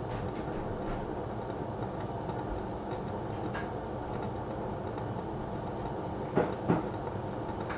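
Gas stove burner running steadily under a saucepan of heating milk, a low, even rumble. Two quick small knocks come close together near the end.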